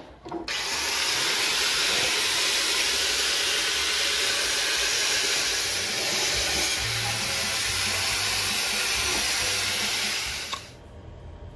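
Steady hissing spray from a hand-held spray wand aimed at a car's underbody. It starts about half a second in and cuts off shortly before the end.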